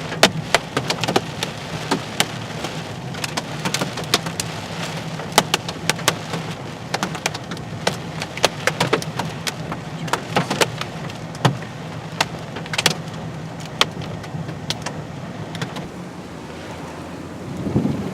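Heavy raindrops striking a hard surface in irregular sharp ticks over a steady rush of rain, with a steady low hum underneath.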